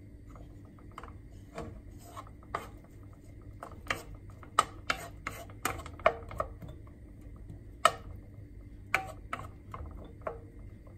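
Wooden spatula knocking and scraping against a nonstick wok while stirring diced onions in a sauté: a string of irregular clacks, busiest and loudest in the middle.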